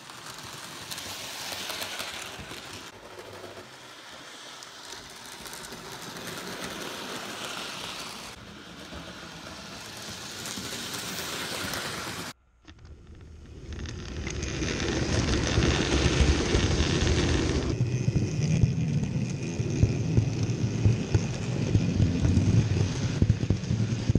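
Model trains running on the layout's track, their wheels and motors making a steady rattle. After a sudden change about twelve seconds in, the rumble is much louder and deeper.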